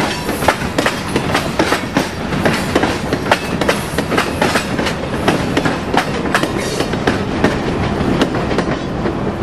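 Freight train cars (covered hoppers and flatcars) rolling past, steel wheels clicking over the rail joints in a steady stream of sharp clacks over a continuous rumble.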